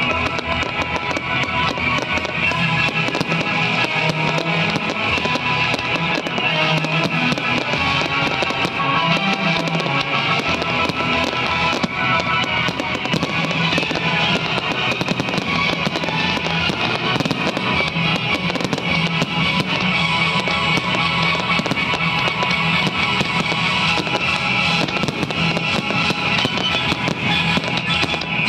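Fireworks crackling and popping continuously, shells and ground fountains going off without pause, under steady, loud music.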